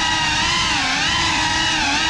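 Cinelog 35 cinewhoop's brushless motors and propellers whining in flight, the pitch dipping and rising with the throttle about a second in and again near the end.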